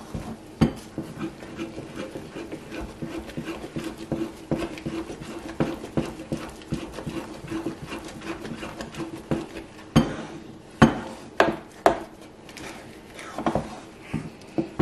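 Wooden spoon stirring and mashing thick sweet potato fufu dough in a metal saucepan, with repeated scraping and knocks of the spoon against the pan. The loudest knocks come about ten to twelve seconds in.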